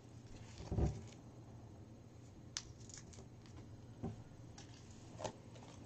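Faint handling of paper slips at a desk: a dull thump about a second in, then a few small crinkles and clicks.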